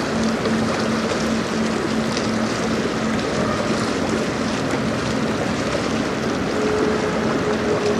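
Passing Great Lakes cargo ship: a steady low hum over a constant rush of river water and wind, with a second, higher hum joining near the end.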